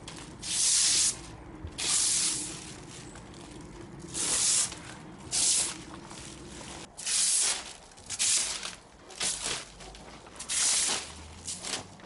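Protective plastic film being peeled off polished styrene sticker panels: about a dozen separate hissing rips, each lasting under a second.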